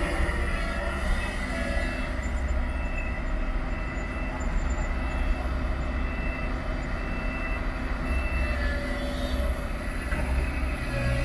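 Kobelco SK200 hydraulic excavator's diesel engine running steadily under load while it digs, a constant low rumble.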